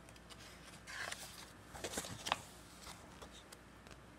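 Paper pages of a board-game rulebook being handled and turned: a few brief rustles, with a quick cluster of rustles and a sharp tick about two seconds in.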